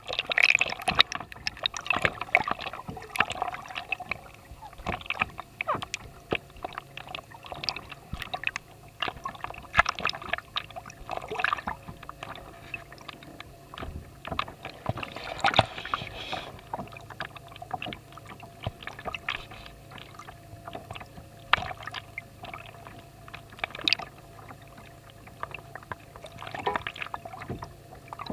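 Water moving around a kayak hull, heard through an underwater camera: a steady wash of sloshing and gurgling, broken by many irregular clicks and pops, over a faint steady low hum.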